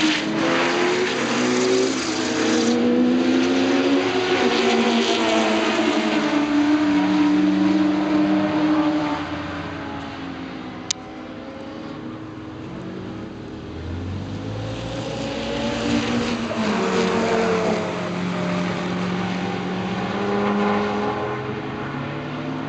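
Several track-day sports cars lapping the circuit, open Seven-style roadsters among them, their engines at hard throttle with the pitch rising and falling through gear changes as they pass. The sound is loud for the first half, dies down around the middle, then builds again as more cars come by. A single sharp click about eleven seconds in.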